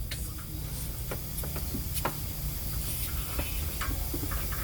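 Scattered light clicks and taps of hand tools and engine parts being handled during engine reassembly, over a low steady hum.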